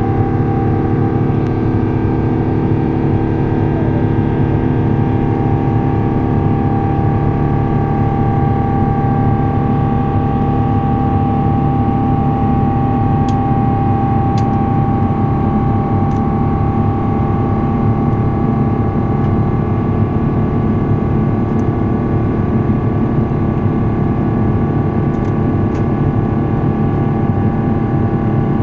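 Airbus A350 cabin noise under engine power: a steady, loud rush of engine and airflow noise from its Rolls-Royce Trent XWB engines, with several steady hums held throughout.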